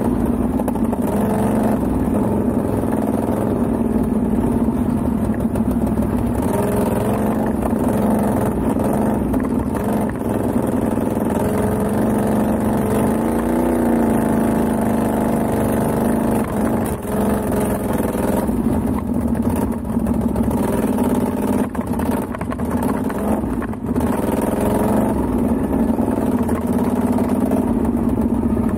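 Can-Am XMR ATV's V-twin engine running at low to moderate revs, its pitch wavering up and down with the throttle.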